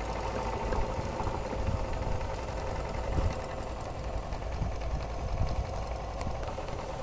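Martin Balis twin-cylinder model steam engine running steadily on steam at about 20 psi boiler pressure, a continuous fast mechanical beat.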